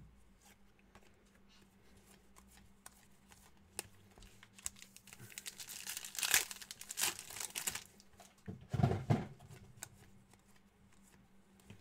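Foil wrapper of a trading-card pack being torn open and crinkled by hand. Near the end comes a short dull thump.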